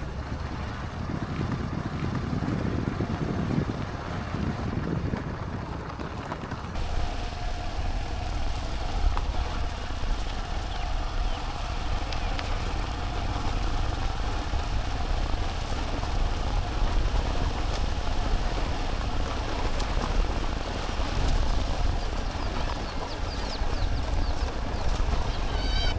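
Wind buffeting the microphone: a steady low rumble throughout. A faint steady hum joins about seven seconds in.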